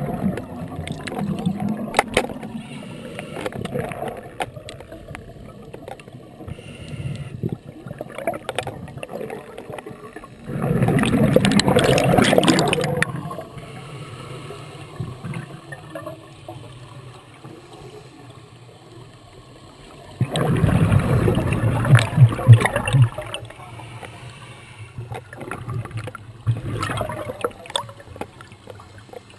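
Scuba regulator exhaust bubbles heard underwater through a camera housing: two loud bubbling rushes of exhaled air, about 11 s and 21 s in, each lasting two to three seconds, with quieter water noise between.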